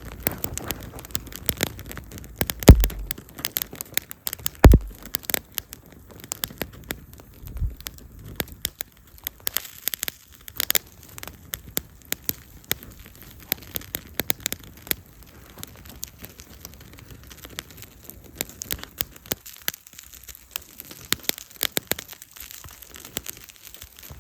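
Campfire of damp wood crackling, with many quick sharp pops, and two loud low thumps about three and five seconds in.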